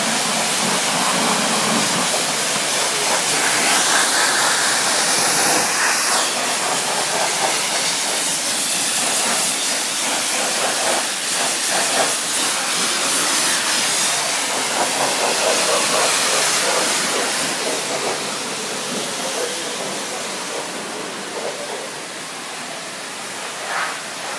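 Self-service car wash's high-pressure spray wand spraying water in a steady loud hiss, easing off somewhat in the last few seconds.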